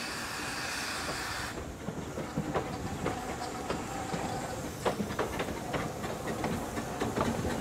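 Narrow-gauge steam train: a steady hiss of steam cuts off about a second and a half in, then the wheels and coaches go by with irregular clicks and clanks over the rail joints and a low rumble.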